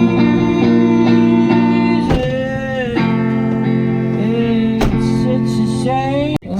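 Live band music with guitar and a voice holding long notes. It cuts out sharply for a moment just before the end.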